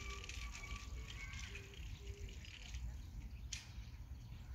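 Faint outdoor background: a steady low rumble, with a single sharp click about three and a half seconds in.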